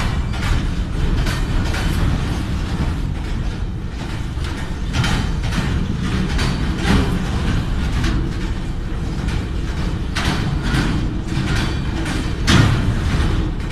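Container-laden freight wagons rolling past close by: a steady rumble with repeated clanks from the wheels and couplings, the loudest one near the end.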